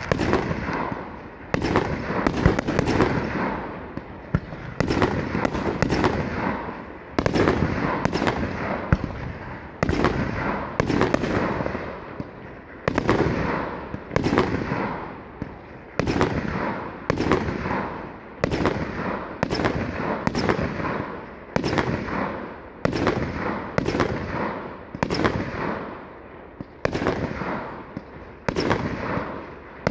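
Aerial firework shells bursting one after another, about once a second and sometimes two close together, each sharp bang followed by a fading, echoing rumble.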